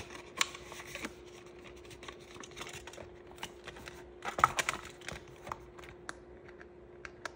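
Paper bills and cash envelopes being handled: soft rustling and scattered light clicks, with a short flurry of sharper clicks about halfway through. A faint steady hum runs underneath.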